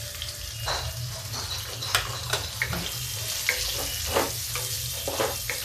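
Sliced onions sizzling in hot oil in a metal kadhai, with a wooden spatula scraping and knocking against the pan several times a second as they are stirred.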